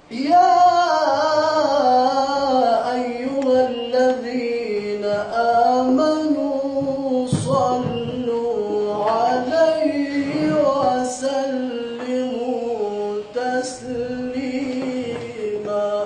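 A man singing an Islamic ibtihal (devotional supplication chant) solo and unaccompanied, holding long notes and ornamenting them with melismatic turns. He starts suddenly and stops just before the end.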